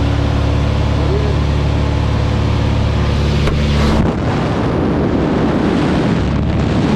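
Single-engine propeller plane's engine droning steadily, heard from inside the cabin in flight. About four seconds in, the steady drone gives way to a louder, gusting rush of wind buffeting the microphone.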